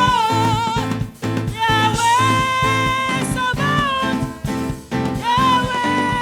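A worship song: a singer holds long notes with vibrato over a band accompaniment that pulses in a steady beat.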